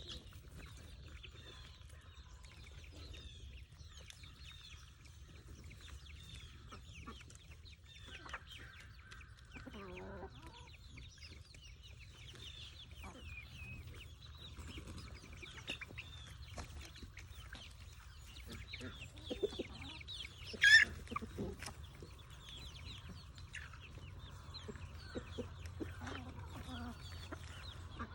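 Chickens clucking, with many small high chirps throughout and one short, loud call about twenty seconds in.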